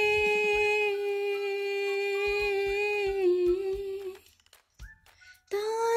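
A high voice humming one long held note, dipping slightly just after three seconds in and fading out about four seconds in; after about a second of near silence a new held note begins near the end.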